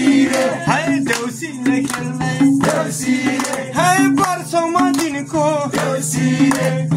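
Nepali Deusi song for Tihar: singing with instrumental accompaniment over a repeating low bass pattern.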